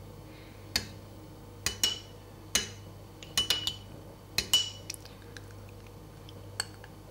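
Metal teaspoon clinking against small ceramic ramekins while scooping passion fruit seeds and stirring them into the juice: about ten sharp, ringing clinks, some in quick pairs and threes, one more on its own near the end.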